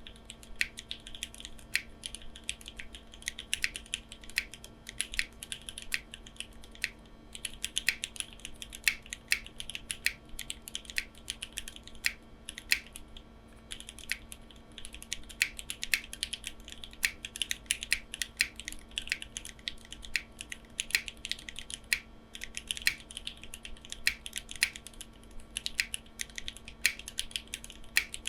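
Typing on a foamless Neo65 mechanical keyboard with lubed and filmed Milky Yellow linear switches: a fast, uneven stream of keystrokes with brief pauses between runs. A faint steady hum sits underneath.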